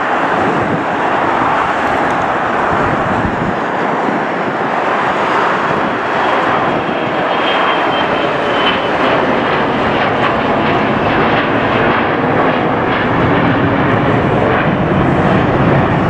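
Business jet's twin rear-mounted turbofan engines climbing overhead: a steady, loud rush of jet noise that builds slightly toward the end, with a faint high whine near the middle.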